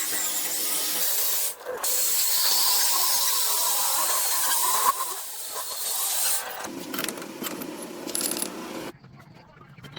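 A power tool working metal: a steady hissing noise that breaks off briefly about a second and a half in, changes character after about six and a half seconds, and stops about nine seconds in.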